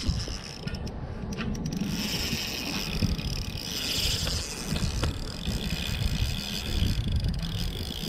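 Spinning fishing reel being worked by hand close by, its gears turning with a ratchety mechanical whirr and small clicks.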